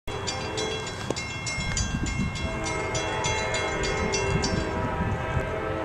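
Grade-crossing bell ringing about three strokes a second, stopping about three-quarters of the way in. From about halfway in, the horn of the approaching CSX locomotive 516 sounds a steady, held chord.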